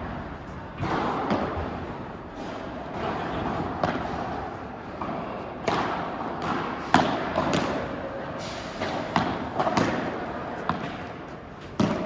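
Padel rally: the ball is struck by rackets and bounces on the court, a string of about a dozen sharp hits at irregular spacing, with faint voices behind.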